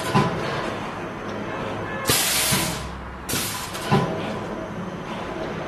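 Pneumatic lanyard hot stamping machine cycling. There are two short bursts of compressed-air hiss, about two and three and a half seconds in, and a few sharp knocks as the press head strokes, all over a steady low hum.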